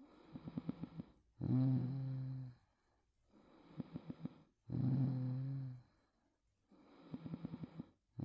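A sleeping young woman snoring in a regular breathing rhythm. A fluttering, rattling snore alternates with a louder, steady hum-like tone, one cycle about every three seconds: three rattles and two hums, with a third hum starting at the very end.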